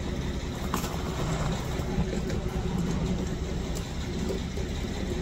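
Diesel engine of a ready-mix concrete truck running steadily, with a few brief knocks from tools and a wheelbarrow.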